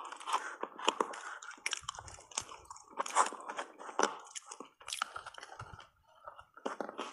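Close-miked chewing and biting of shaved ice thickly coated in matcha powder: many irregular crisp crunches, several a second, with a few louder bites.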